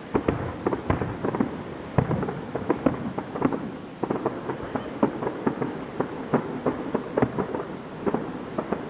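Fireworks going off in quick, irregular succession, several sharp bangs and cracks a second.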